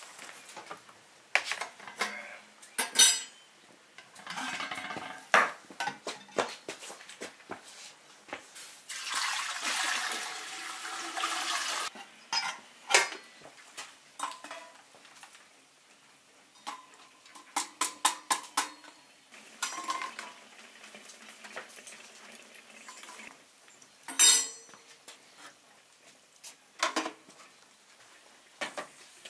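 Water poured into a metal samovar for about three seconds near the middle. Before and after it comes a run of sharp metal clinks and knocks from the samovar's parts and the metal pots and pans.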